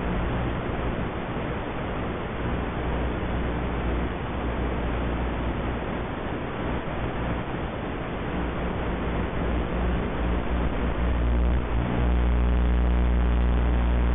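Steady hiss and static with a low electrical hum, the audio channel of an analog FPV video link recorded on the goggle DVR. The hum grows louder and steadier about 12 seconds in.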